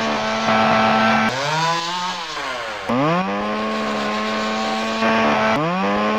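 Chainsaw engine revving at high speed. Its pitch falls away about a second in, climbs back up about three seconds in, then briefly dips and rises again near the end.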